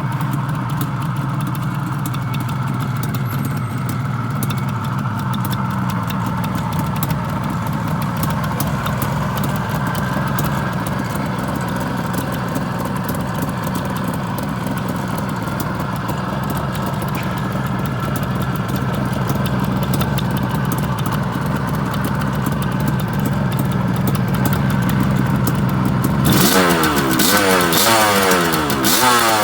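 Suzuki GT380's air-cooled two-stroke three-cylinder engine idling steadily, then revved up and down several times near the end. The engine is freshly fully overhauled and running smoothly, with no abnormal noises.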